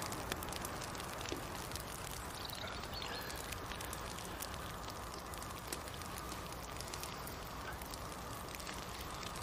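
Campfire crackling softly, with many small scattered pops over a steady hiss.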